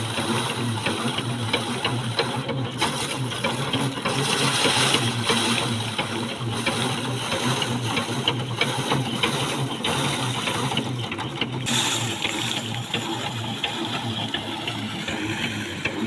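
Drum rice thresher running with a steady whirr, rice sheaves held against its spinning wire-toothed drum, with a dense patter of quick clicks as the grain is stripped off.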